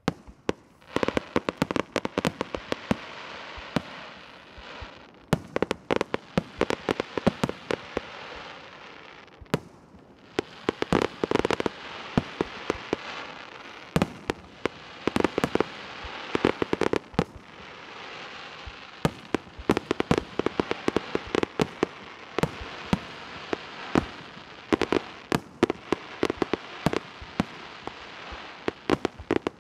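Fireworks display: rapid, dense volleys of sharp bangs from bursting aerial shells and rockets over a continuous crackle. It starts suddenly after near quiet, and the bangs thin out briefly about ten seconds in before resuming.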